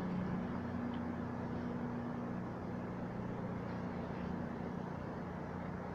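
CrossCountry Class 220 Voyager diesel multiple unit's underfloor diesel engines running steadily with a low, even hum.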